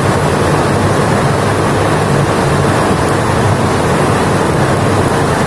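Hot oil sizzling steadily around small gram-flour and semolina dough balls as they deep-fry in a pan, mixed with the steady sound of heavy rain.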